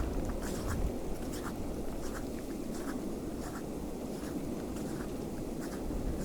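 Footsteps crunching in icy snow, short crisp crunches about twice a second, over a steady low rush of wind.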